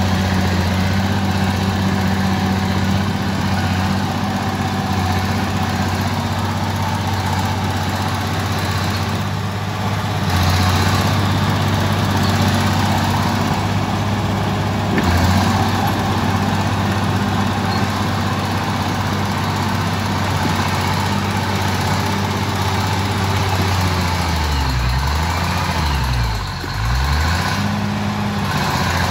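A crawler bulldozer's diesel engine running steadily. Near the end its revs drop and climb again several times as the machine works.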